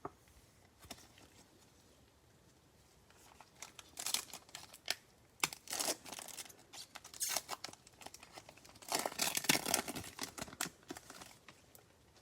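A trading card pack wrapper being torn open and crinkled by hand, in irregular crackly bursts that start a few seconds in and are loudest near the end.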